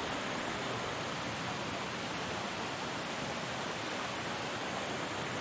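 Steady rush of water from a rainforest creek, an even, unbroken hiss with no change in level.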